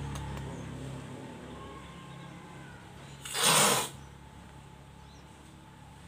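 A single loud hiss of noise lasting about half a second, a little over three seconds in, over a low background.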